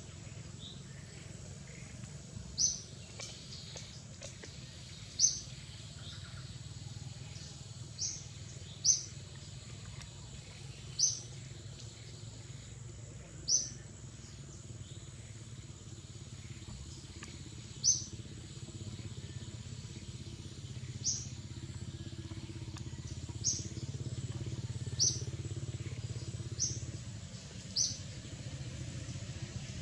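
A bird giving short, sharp high chirps, one every two to three seconds, about a dozen in all. Beneath them runs a steady low rumble, a little louder in the second half.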